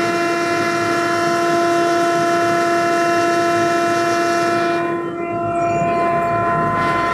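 Millzon double-chamber pulverizer running with a steady, multi-tone motor whine. About five seconds in it cuts to a wet grinder's motor running with a different steady whine.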